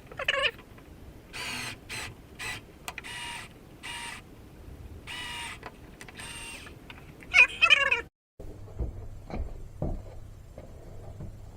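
Cordless drill driving deck screws into a hickory strip in a series of short whirring bursts, with two loud high squeals, one near the start and one about seven seconds in. After a brief dropout comes a low hum with a few knocks.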